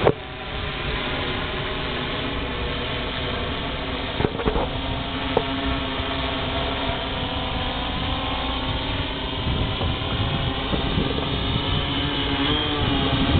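Electric hexacopter's motors and propellers whining steadily in flight, several pitches together, with a couple of short knocks around four and five seconds in; the pitch wavers near the end as it comes down.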